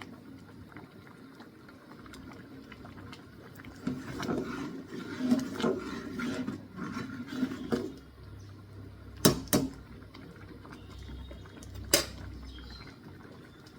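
Kitchen utensils and pots clattering and scraping for a few seconds, then three sharp knocks: two close together and one about two seconds later.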